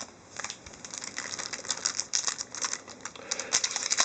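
Trading card packs and cards being handled: a quick, uneven run of small dry clicks and rustles from wrapper and card stock, growing busier toward the end.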